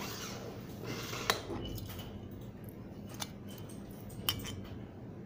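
Metal pieces of a zinc alloy herb grinder being handled and pulled apart: a brief scraping, then three sharp metallic clicks.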